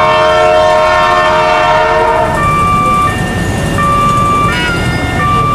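Train horn sounding a steady multi-note chord that cuts off about two seconds in, then an electronic two-tone warning signal alternating between a lower and a higher pitch about every 0.7 seconds.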